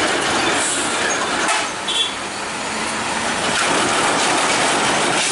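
Heavy vehicles passing, a loud steady rushing noise with no clear engine note.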